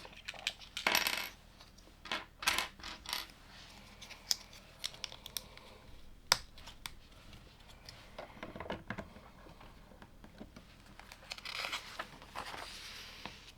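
Plastic LEGO pieces clattering and clicking as they are handled during building: irregular sharp clicks and short clattering runs, with a longer rustling, rattling stretch near the end.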